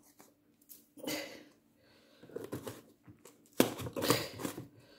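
Soft rustling as spice is shaken from a plastic shaker lid over sweet potato chips, then a sharp plastic click about three and a half seconds in as the lid goes back onto the plastic spice jar, followed by a second of handling noise.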